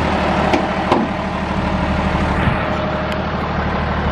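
A 2009 Hino 268 box truck's diesel engine idling with a steady low hum. A couple of light clicks come about half a second and one second in.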